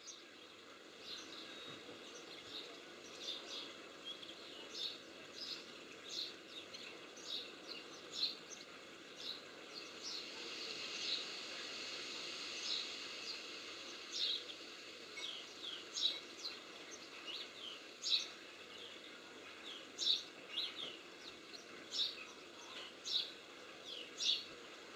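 European greenfinches calling: short, sharp chirps roughly once a second, with a stretch of denser twittering around the middle, over a steady background hiss.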